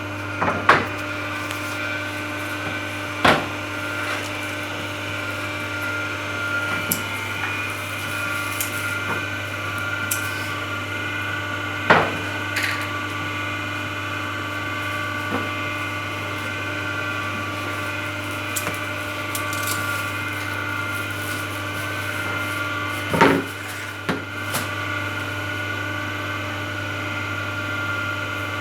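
Hydraulic C-frame cutting press running with a steady mechanical hum from its motor and pump, broken by a few short, sharp knocks.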